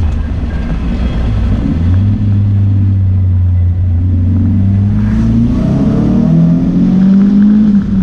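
Turbocharged KA24DET 2.4-litre four-cylinder heard from inside the car's cabin, accelerating on the road: the engine note steps up, holds steady for a couple of seconds, then climbs steadily to its loudest and drops away abruptly near the end as the throttle is lifted or a gear is changed.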